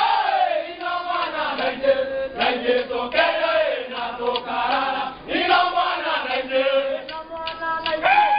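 A group of dancers chanting a Kimeru traditional song together, in phrases that rise and fall with short breaks between them, led by a singer at a microphone.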